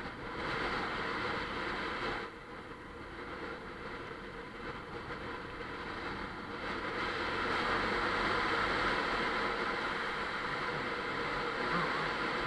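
Bajaj Pulsar 150 motorcycle on the move, heard as a steady rush of wind and road noise over the camera microphone. It dips briefly about two seconds in, then grows louder as the ride picks up speed.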